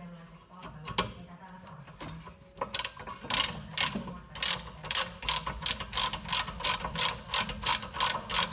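Hand ratchet wrench clicking in an even rhythm, about three clicks a second, starting near three seconds in, after a couple of separate metal knocks.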